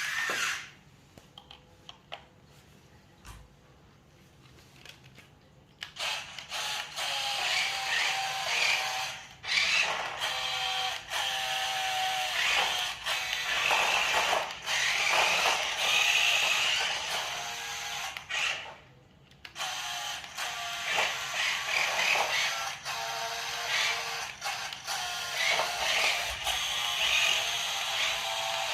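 Background music, nearly silent for the first few seconds apart from a few faint clicks, then playing on with a brief break about two-thirds of the way through.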